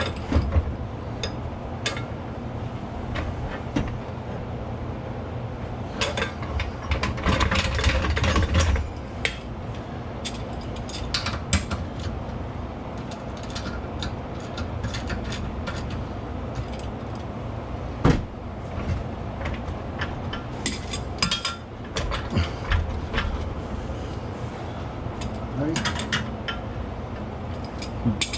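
Hand ratchet wrench clicking in short runs while loosening bolts, with scattered metallic clinks of tools and parts. The densest run of clicking comes about six to nine seconds in, over a steady low hum.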